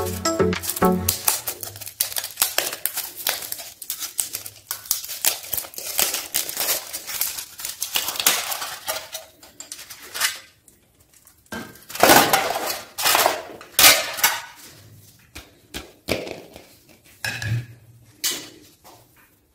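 Thin foil wrapper of a Kinder Surprise chocolate egg crinkling and crackling as it is peeled off by hand, with louder crumpling a little past the middle. It thins out toward the end, with a few light knocks.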